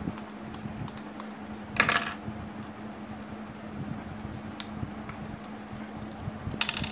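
Small plastic clicks and rattles of a 13 A mains plug being opened by hand to take out its fuse, with a louder scrape about two seconds in and another near the end. A steady low hum runs underneath.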